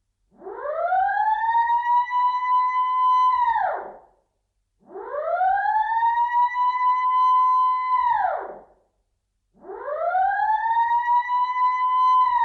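Alarm siren wailing in a repeating cycle: each wail climbs in pitch over about a second and a half, holds a steady high note for about two seconds, then drops quickly and stops. There is a short silence before the next wail, and the cycle repeats about every four and a half seconds, three times.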